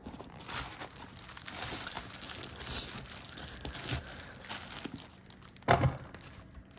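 Hands handling a black leather sneaker, making scattered rustling and crinkling noises, with one short, louder thump near the end.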